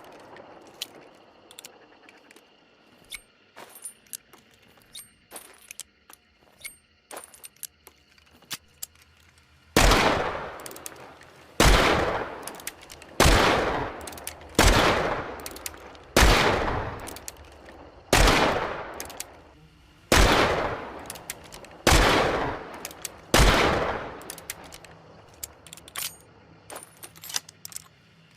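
Smith & Wesson Model 3 revolver sound effect: a run of light mechanical clicks, then nine single shots about one and a half to two seconds apart, each with a long echoing tail, and a few more clicks near the end.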